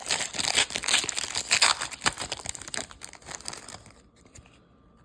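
Crinkling plastic wrapping as trading cards are unwrapped and handled, a dense crackle that stops about four seconds in.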